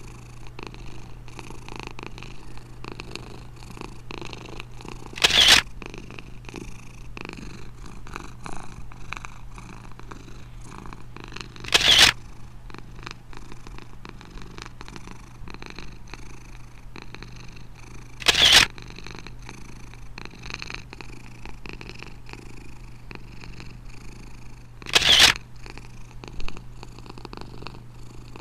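A domestic cat purring steadily and close. Four times, about every six and a half seconds, a short loud burst of noise cuts in over the purr.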